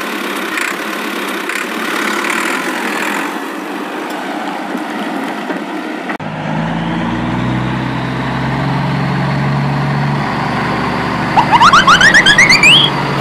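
Vehicle engine sound effects for toy vehicles: an engine running, then from about six seconds in a deeper, steady truck-engine hum. Near the end comes a loud, quick run of beeps rising in pitch.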